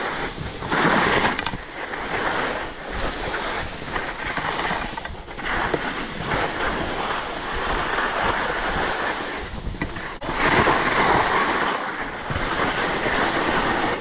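Skis hissing and scraping over spring snow, with wind buffeting the microphone. The hiss swells loudest about a second in and again around ten seconds in.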